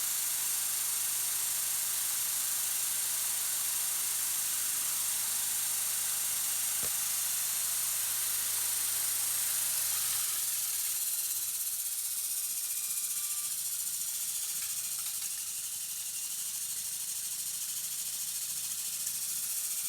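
Stick-welding arc from a Lincoln SA-200 welder, a steady crackling hiss. A low hum underneath stops about ten seconds in.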